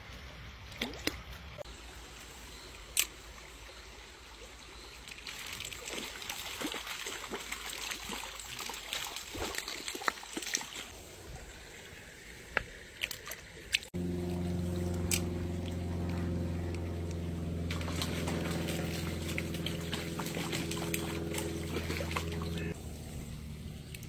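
Shallow stream water trickling and sloshing around hands as a small trout is held and let go, with scattered sharp clicks and splashes. About halfway through the sound cuts abruptly to a louder, steady low hum that runs for about nine seconds over the water noise, then stops.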